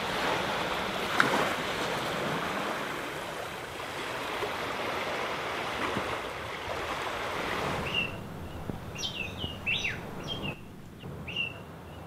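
Small waves washing steadily onto a sandy, rocky shore. About eight seconds in, the wash gives way to birds chirping: short calls sweeping downward, repeated several times.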